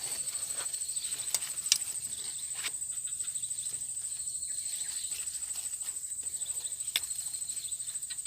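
Insects trilling in a steady, high-pitched, fast-pulsing chorus, with a few sharp clicks, the loudest a little under two seconds in.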